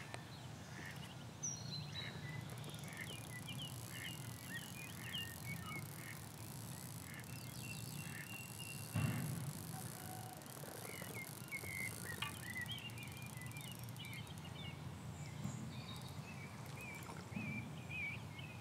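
Small birds chirping and calling over a steady low rumble, with a single knock about nine seconds in.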